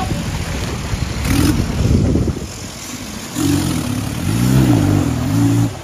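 Off-road buggy engine revving in bursts: a swell, a brief easing off, then hard revving with the pitch rising and falling, cut off sharply near the end.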